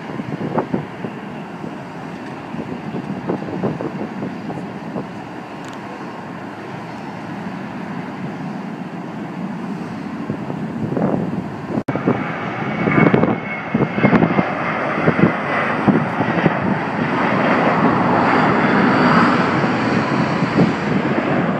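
Jet airliner engines at takeoff power, heard as a steady, broad rumble with gusts of wind buffeting the microphone. After a sudden cut about halfway through, the engine noise comes back louder and keeps growing toward the end as a second jet lifts off.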